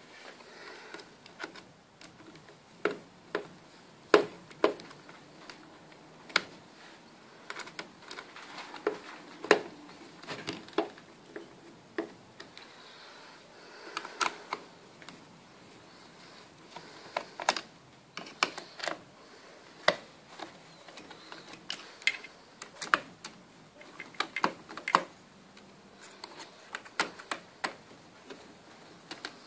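Irregular small clicks and taps of a screwdriver and small metal screws being handled while the screws holding an electric fence energiser's circuit board are undone.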